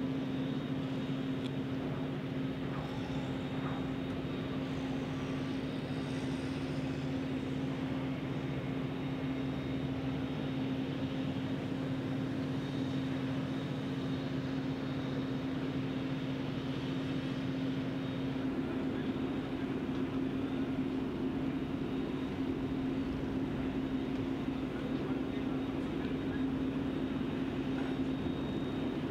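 Steady mechanical hum of running machinery: one constant drone over a haze of background noise, the noise growing a little louder about two-thirds of the way through.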